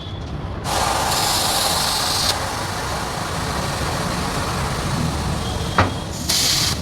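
Compressed air hissing in two sharp-edged bursts, one about a second and a half long near the start and a shorter one at the end, over a steady background rumble, with a single sharp click in between.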